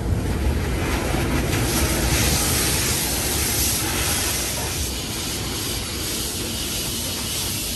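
Automatic car wash heard from inside a pickup's cab: water jets spraying and sheeting over the windshield and roof, over a steady low rumble. The spray hiss is loudest in the middle and eases off after about five seconds.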